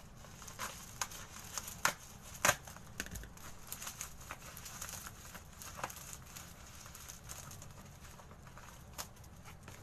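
Plastic parcel packaging crinkling and tearing as it is cut with a knife and pulled open by hand, with irregular crackles and two sharper cracks about two seconds in.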